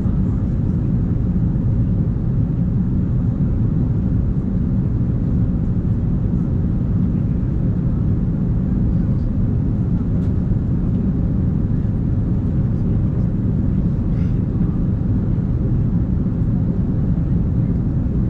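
Steady low roar of airliner cabin noise inside an Airbus A380, engine and airflow noise at an even level without change.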